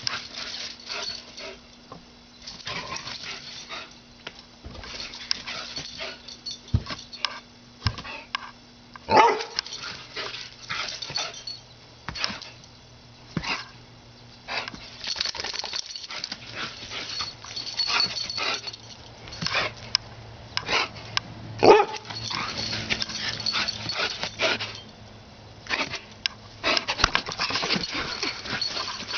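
Greyhound playing and zooming around a grass lawn, with a run of quick thuds and scuffles from its feet and two short, loud barks about nine seconds in and about twenty-two seconds in.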